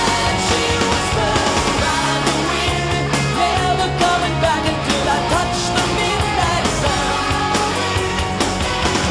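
Hard rock song playing, with a male lead vocal over electric guitars and drums.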